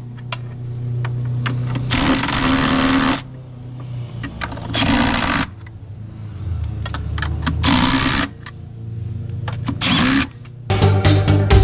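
Background music overlaid by four separate bursts of a noisy workshop tool or machine, each about a second long.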